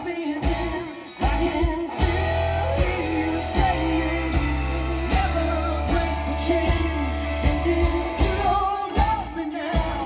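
Live rock band playing a song, with a lead vocal over guitar and a strong, steady bass line.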